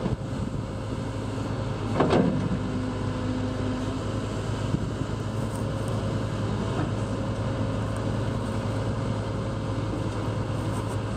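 Hitachi ZX75US hydraulic excavator running steadily as its boom and arm move, with a sudden louder surge about two seconds in and a steady tone for a couple of seconds after it.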